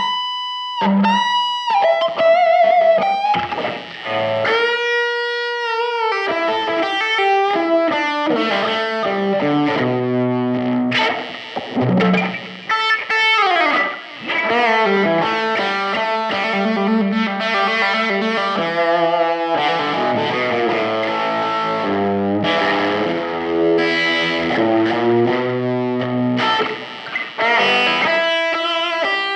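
Electric guitar strung with GHS Boomers nickel-plated steel roundwound strings, played through an amplifier with some effect on the tone: a note bent upward at the start, held notes, then quick single-note runs and chords.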